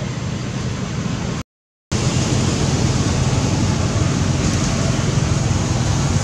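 Steady rushing noise with a low rumble underneath. It drops out to silence for about half a second near one and a half seconds in, then resumes a little louder.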